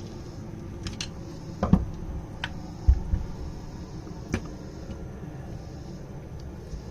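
Scattered clicks and knocks of small metal carburetor parts and hand tools being handled on a workbench, about half a dozen in the first four and a half seconds, over a steady low hum.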